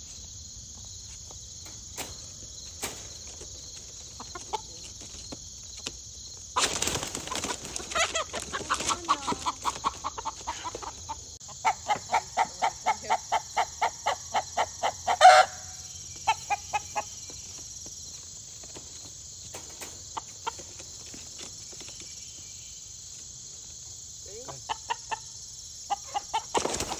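Roosters shut in a wire crate flap their wings in a loud flurry about seven seconds in. Later a rooster gives a run of rapid clucks, about four a second, ending in a sharp squawk. A steady high chirring of crickets goes on underneath.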